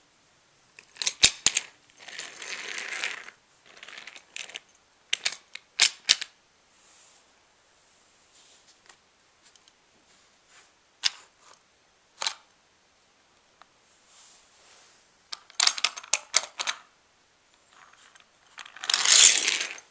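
Clicks, clacks and short scrapes of a plastic Take N Play Sodor Steamworks Repair Shed toy playset being worked by hand, its platform moving with a small toy engine on it. Near the end comes a louder, longer scraping rattle as the shed is folded up.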